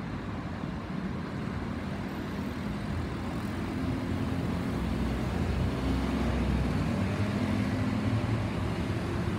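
Low, distant rumble of an Airbus A320-216's twin CFM56-5B6 jet engines as the airliner passes high overhead, growing gradually louder.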